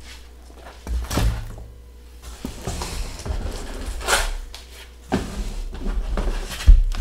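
Foam-wrapped glass bottles being handled, lifted out of a cardboard box and laid on a table: rustling of foam and cardboard with a few knocks, the loudest a dull thump near the end.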